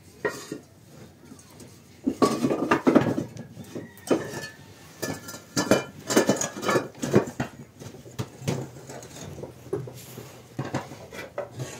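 Hollow clay bricks clinking and knocking against one another as they are handled and laid in rows on a dirt floor: a long run of irregular sharp knocks.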